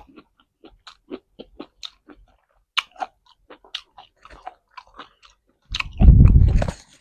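Close-miked chewing of food: a steady run of short clicks and smacks from the mouth, then a loud low rumble near the end lasting about a second.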